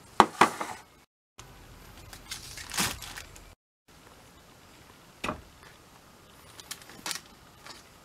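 Kitchen handling noises as groceries are picked up and set down on a counter: a quick cluster of knocks just after the start, a rustling swish near the middle, and a few single clicks later. The sound drops out to dead silence twice for a moment.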